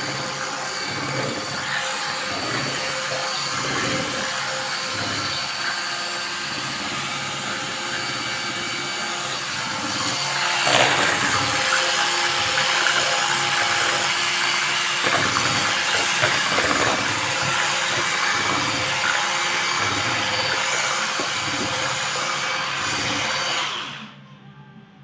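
Electric mixer running steadily as it whisks cake-like waffle batter, getting a little louder about halfway through, then switched off suddenly near the end.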